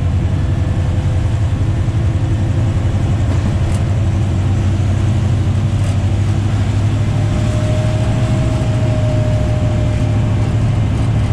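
Diesel locomotive engine running steadily under way, heard from the cab, a deep even drone with a faint steady whine over it.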